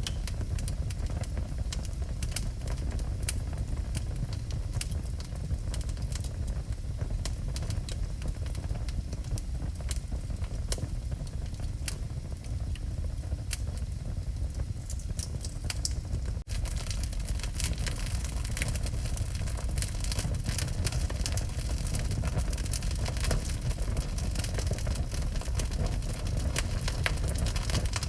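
Wood fire burning in a fireplace, crackling with frequent sharp pops over a steady low rumble. There is a brief dropout about 16 seconds in, and the crackling is denser after it.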